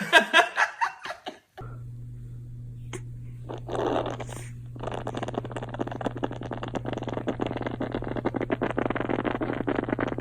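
A baby laughing briefly. Then, after a cut, a steady low hum with a long, crackling, sputtering baby fart starting about five seconds in.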